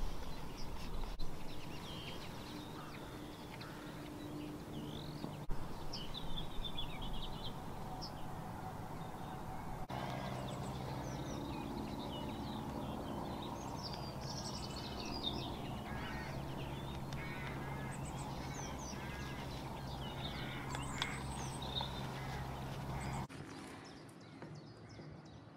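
Several small birds singing and chirping, their calls overlapping, over a low steady hum. The sound drops quieter near the end.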